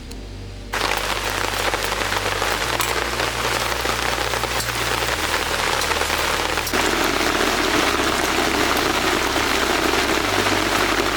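A steady, dense hiss of fine patter that starts abruptly about a second in and grows fuller about two-thirds of the way through, over background music with low bass notes.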